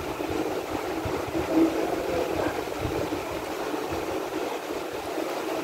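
Steady background rumble of a restaurant dining room, with faint, brief, indistinct sounds mixed in.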